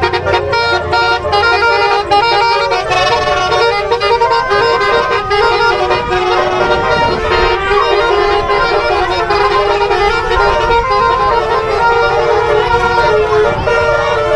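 Bus telolet (basuri) multi-tone air horn playing a melody of held notes stepping in pitch, loud and continuous over an engine rumble.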